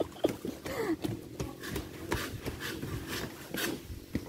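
Footsteps on a bamboo-slat walkway: irregular knocks and clatter of the loose slats underfoot.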